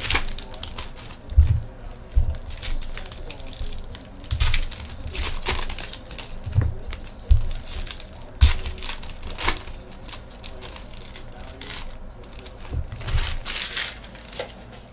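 Foil wrappers of 2015 Panini Contenders Draft Picks card packs crinkling and tearing as they are ripped open one after another, in repeated short bursts. Soft low thumps come in between.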